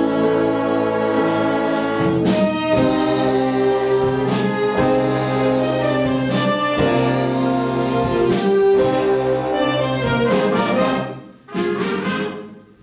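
Live brass-heavy orchestra with trumpets, trombones and saxophones playing an instrumental passage of held chords and accented hits, without vocals. Near the end the music falls away sharply twice.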